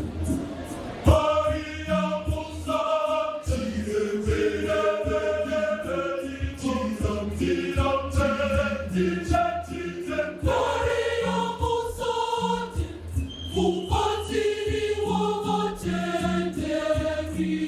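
A church choir of women's and men's voices singing in harmony, entering strongly about a second in, over a steady rhythmic beat.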